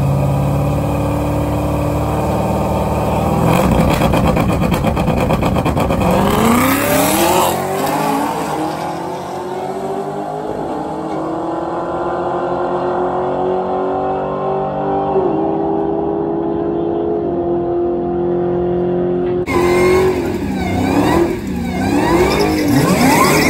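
Car engine accelerating hard, its pitch climbing and stepping with gear changes, then holding a steady drone. Near the end the sound changes abruptly and the engine pitch swoops up and down several times.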